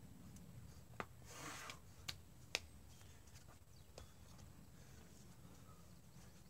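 A climber's hands and rock shoes on sandstone: four sharp taps and clicks as holds are grabbed and a heel hook is set, with a short hissing rush about a second and a half in, over near silence.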